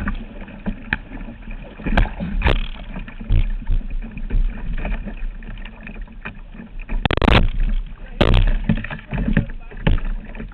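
Kayak paddling: irregular paddle splashes and knocks against the water, the loudest a cluster about seven to eight and a half seconds in, over a steady low rumble.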